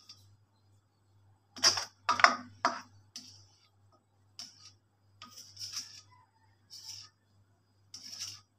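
A white serving spoon scraping the inside of a black wok and clinking against a ceramic bowl while the cooked dish is scooped out: an irregular run of clinks and scrapes, the three sharpest close together about two seconds in.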